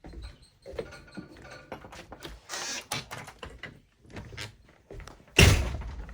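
Knocks, clicks and a scrape from hands and tools working at the stuck air conditioner and its surround, with one loud thump about five and a half seconds in.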